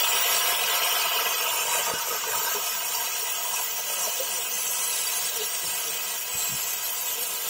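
Narrow-gauge steam tank locomotive Lyd, a 2-6-2T, standing with steam hissing steadily from its front end.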